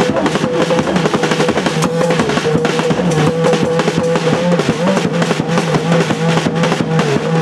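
Loud drum music of rapid, dense strokes, with a long held, slightly wavering note sounding above it.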